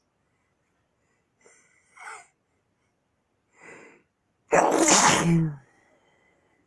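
A man's induced sneeze: two short, quieter build-up sounds, then one loud sneeze a little past halfway, lasting about a second.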